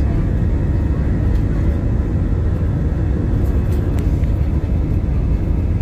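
Jet airliner cabin noise as the plane rolls along the runway: a loud, steady, low roar of engines and wheels.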